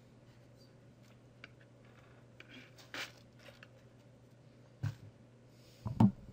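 A steady low hum under a few faint clicks, then two dull knocks, one about five seconds in and a louder one at about six seconds.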